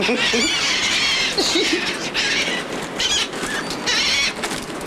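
A flock of gulls crowding in for food, giving repeated shrill squealing calls in several overlapping bursts over a steady background hiss.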